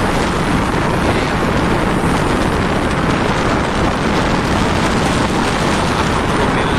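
Steady, loud rush of wind and sea noise aboard a vessel in rough water, with wind buffeting the microphone.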